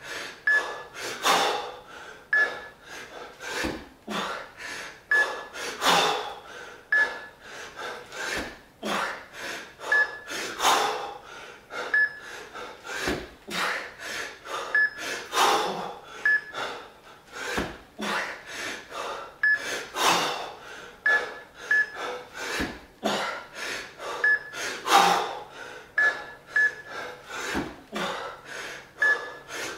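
A man breathing hard and rhythmically through a set of two-arm kettlebell jerks, with a loud forceful breath about every four and a half seconds, one for each rep, and smaller breaths between. Short, high, same-pitched electronic beeps from a Fixometer sound again and again through the set.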